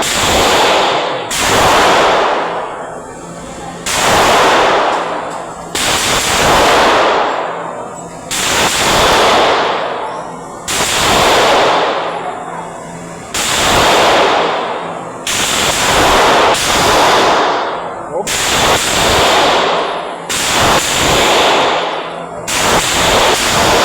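Gunshots on a shooting range, fired one at a time about every one to two seconds, each followed by a long echoing decay.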